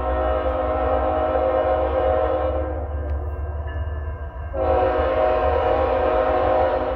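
Multi-tone air horn of an approaching Canadian National freight train's GE ET44AC locomotive sounding two long blasts. The first lasts about three seconds; the second begins about four and a half seconds in.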